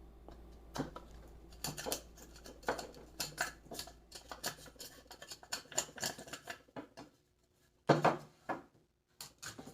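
Wood chisel scraping and prying loose wood chips out from between saw kerfs, a run of irregular short scrapes and clicks, with a louder knock about eight seconds in.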